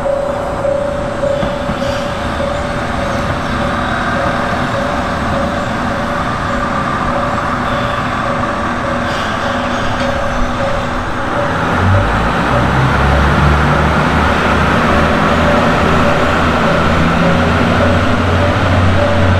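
A JR Central KiHa 25 diesel railcar arrives at a station. At first a steadily repeating bell-like tone rings over a wash of running noise. About twelve seconds in, the railcar's diesel engine comes in close as a loud, low, steady hum and keeps running.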